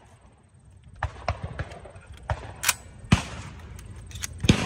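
Irregular sharp clicks and knocks, sparse at first and coming several a second, louder in the second half, with the strongest knock near the end.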